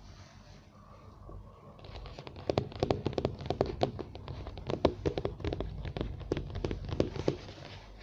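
Chewing and crunching food, with many quick, irregular crackling clicks starting about two seconds in and easing off near the end.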